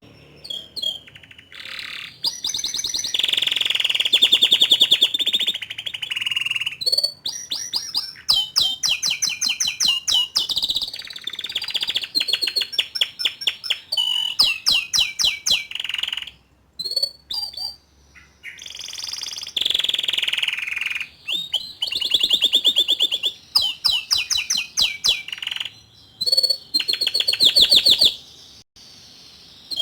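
Young male canary singing: fast trills and rapid rolling runs of notes, in song phrases several seconds long separated by short pauses.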